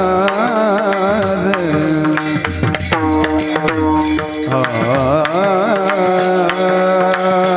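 Devotional kirtan singing: a male voice holding long, ornamented notes that waver and glide, over a steady drone, with regular hand-drum strokes.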